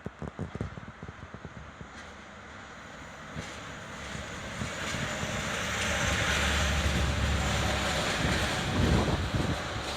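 DE10 diesel-hydraulic locomotive approaching with the Maya 34 track-inspection car. Its engine rumble and wheel noise build over several seconds to a loud, steady drone. Wind gusts buffet the microphone at the start.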